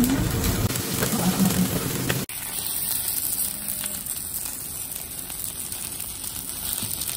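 Takoyaki sizzling in freshly added finishing oil in a takoyaki pan on a portable gas stove. A little over two seconds in, the sound cuts abruptly to a quieter, thinner, hissing sizzle.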